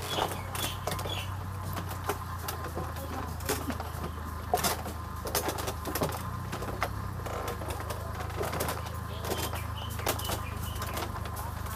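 Footsteps on a bamboo-slat walkway, with irregular light knocks and clacks of the slats underfoot, over a steady low hum.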